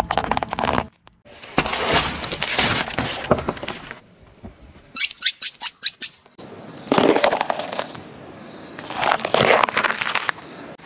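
A car tyre crushing objects under its weight in several separate stretches of dense crackling and crunching: foil-wrapped chocolate eggs cracking and popping at the start, a quick run of sharp cracks a little after five seconds, and a green bell pepper crunching and splitting near the end.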